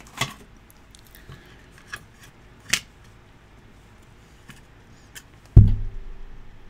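Light metallic clicks and ticks of small lock tools and parts being handled and set down on a rubber bench mat, one sharper click a little before the middle. Near the end a dull, heavy thump on the bench, the loudest sound, as the plastic pin tray is pressed down.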